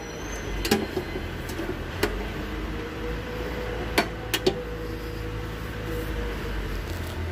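The handle of a heavy-duty safety switch thrown to on with a sharp clack less than a second in, then a few lighter clicks and knocks from test leads being handled, all over a steady low hum.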